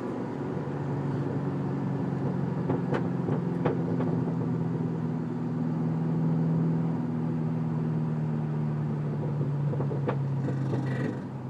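Car engine and road noise heard from inside the cabin in third gear: the engine pitch rises a little as the car speeds up, then falls as the driver lifts off the throttle and coasts down. This coast-down is where the driver hears a grinding noise from the transmission or something underneath. A few faint clicks sound along the way.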